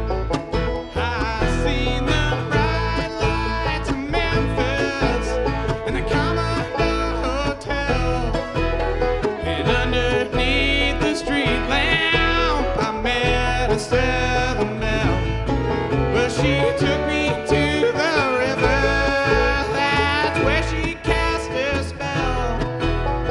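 Live bluegrass band playing at a lively tempo, with banjo and mandolin picking over a steady bass, and a male voice singing a lead line over the picking.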